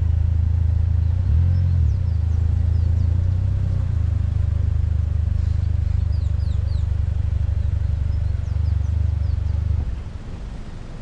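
Chrysler PT Cruiser's engine running at low speed as the car is driven slowly, briefly rising in pitch about a second and a half in, then switched off shortly before the end. Birds chirp faintly in the background.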